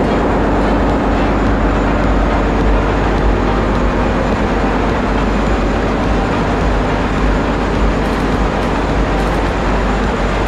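Loud, steady drone of running machinery in a passenger ship's engine room, with a low hum under a broad rushing noise.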